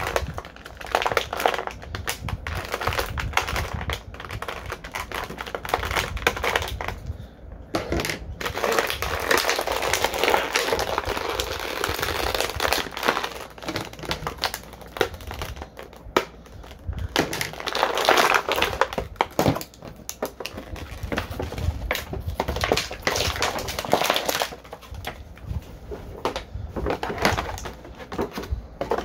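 Plastic action-figure packaging handled at length, rustling with many quick clicks and snaps, as a figure is worked free of its bands and packing.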